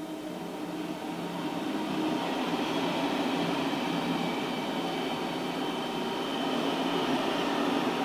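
Freight train passing: an SNCF freight locomotive going by at the start, then a string of covered and coil-carrying freight wagons rolling past with a steady running noise of wheels on the rails, a little louder after about two seconds.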